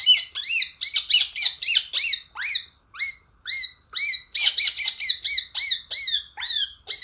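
A mimicry artist imitating a parrot with his voice. Quick runs of high squawks that rise and fall in pitch, a few each second, with brief pauses between runs.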